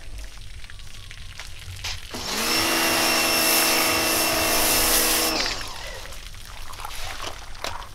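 Pressure washer with a foam-cannon attachment spraying degreaser foam onto the tractor. Its motor and pump wind up with a rising whine when the trigger is squeezed about two seconds in, run steadily with a hiss of spray for about three seconds, then wind down when the trigger is let go.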